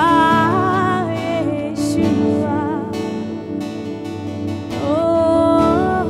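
A woman singing a Malayalam Christian worship song, accompanying herself on strummed acoustic guitar. She holds long, gliding notes near the start and again near the end.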